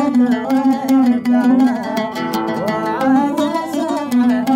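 Oud playing a melody in quick plucked notes, with sliding ornaments between pitches.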